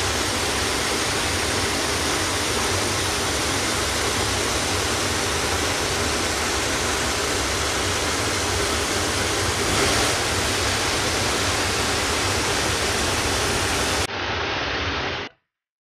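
Steady heavy rain, a dense even hiss. Near the end it turns duller for about a second, then cuts off suddenly.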